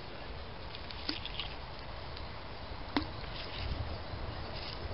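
Two light clicks of small metal pieces being worked off a neodymium fishing magnet by a gloved hand, a soft one about a second in and a sharper one at about three seconds, over a faint steady outdoor background.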